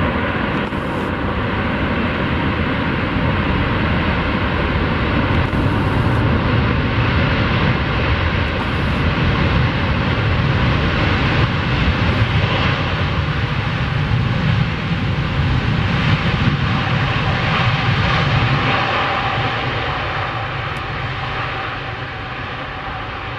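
Airbus A380-800's four Engine Alliance GP7270 turbofan engines during the landing roll-out: a loud, steady jet rush with a faint whine, building through the middle and fading over the last few seconds as the aircraft slows and draws away.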